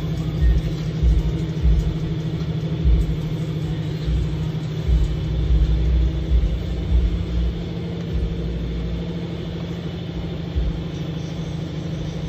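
A steady low mechanical hum, with irregular dull low thumps through the first two-thirds that then thin out.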